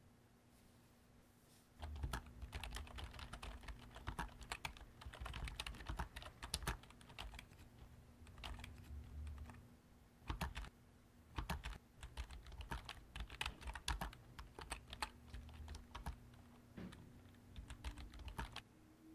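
Fast typing on a laptop keyboard, starting about two seconds in: rapid runs of key clicks with short pauses between them.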